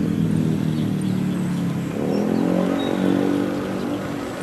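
Diesel engine of a passenger train pulling away, a steady pitched hum under load that wavers slightly and eases a little in loudness near the end.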